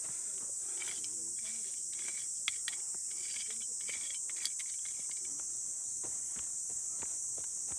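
Steady high-pitched chorus of insects, with a few light clicks and knocks over it.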